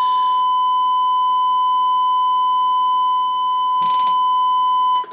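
Steady single-pitch audio test tone being fed into a Cobra 29 LTD CB radio to modulate its transmitter for an output-power check. It cuts off suddenly near the end.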